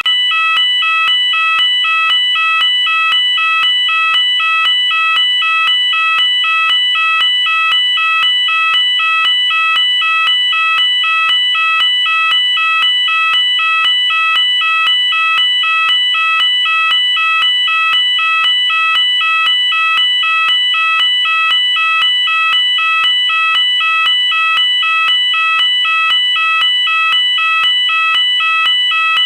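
UK electronic fire alarm sounder going off continuously. It is a loud, shrill tone that switches rapidly and evenly between two pitches, without a break.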